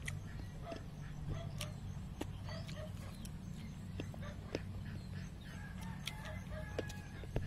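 Close-up eating sounds of boiled pork ribs: chewing and lip-smacking with scattered sharp clicks, over a steady low hum.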